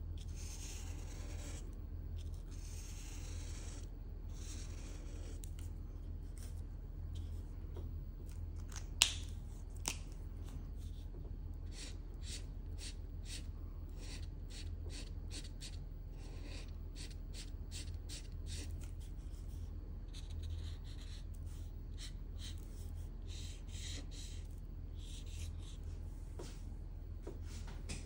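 Felt-tip marker rubbing on paper in quick repeated shading strokes, several a second through the middle. There is a sharp click about nine seconds in, a smaller one just after, and a steady low hum underneath.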